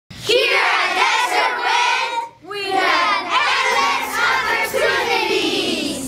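A class of young children shouting together in unison: two long group shouts with a brief break about two seconds in, the second trailing off downward at the end.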